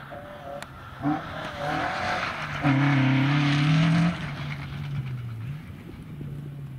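Rally car engine running hard along a gravel stage, held at high revs and loudest about three seconds in, with a hiss of tyres on gravel; about four seconds in the note drops and the engine quietens as the car moves away.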